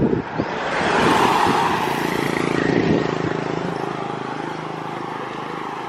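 A motor vehicle passing close by, its engine and road noise swelling about a second in and then fading away.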